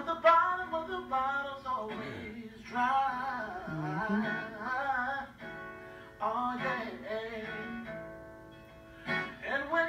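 A man singing to his own acoustic guitar, in phrases with short breaks between them, heard through a television's speakers across a room.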